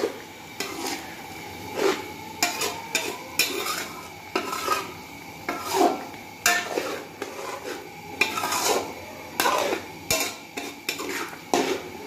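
Metal spoon scraping and clinking against a metal cooking pot in repeated, irregular strokes as beef masala with yogurt and tomatoes is stirred while it fries, with a sizzle underneath.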